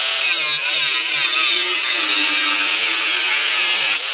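Angle grinder with an abrasive cutoff wheel running under load, cutting into the steel motor case with a loud, steady grinding hiss and a wavering whine.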